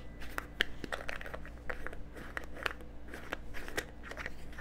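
Mustard seeds shaken out of a small glass spice jar: a run of irregular small clicks and rattles, a few to the second.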